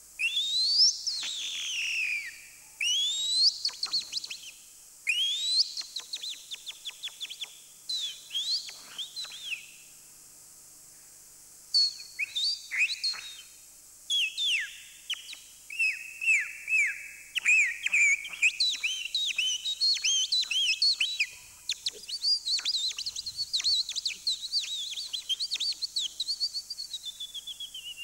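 A man imitating songbird calls by mouth: high whistled chirps and sweeping notes in short phrases with brief pauses. The calls turn into denser, rapid chirping in the second half and end on a falling whistle.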